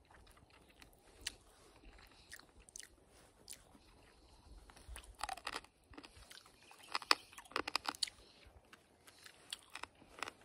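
A person chewing and biting grilled chicken wings: scattered small crunches and clicks, busiest from about five to eight seconds in.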